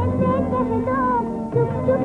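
Late-1940s Hindi film soundtrack music: a wavering melody line over a low held note.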